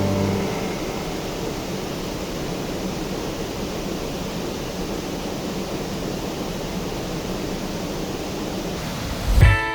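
Steady rushing of a waterfall, an even roar of falling water. Music with plucked notes cuts in near the end.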